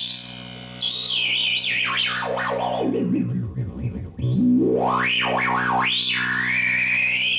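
Rhodes Chroma analog polyphonic synthesizer playing a patch with a steady low held drone under a lead tone that glides in wide pitch sweeps. The lead climbs high, wobbles down to a very low pitch about halfway through, then rises back and bends in a slow arc.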